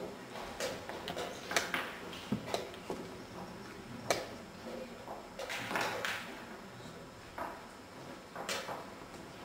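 Wooden chess pieces set down on a wooden board and chess clock buttons pressed in quick blitz play: an irregular string of sharp clicks and knocks.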